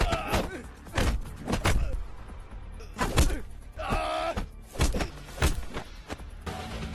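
Movie fight-scene punch and hit effects: a quick run of sharp thuds, with short shouts from the fighters, over background music that carries on alone near the end.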